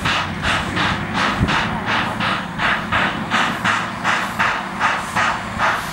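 Z152 steam crane's steam engine chuffing in a steady, even rhythm, about three exhaust beats a second.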